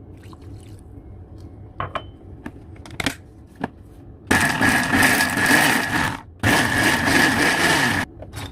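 Electric mixer grinder run in two pulses of about two seconds each, with a short pause between, grinding ginger and whole spices with a little water into a coarse paste; a steady high whine sits over the motor noise. A few light clicks and knocks of the jar come before the first pulse.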